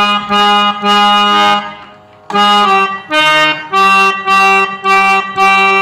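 Harmonium played by hand: a slow melody of separate reed notes over a held lower note, with a brief pause about two seconds in.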